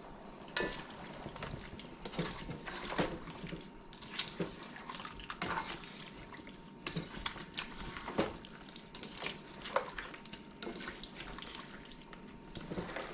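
Seasoned brown stew chicken sizzling in a pot: a steady hiss with irregular crackles and pops, a few a second.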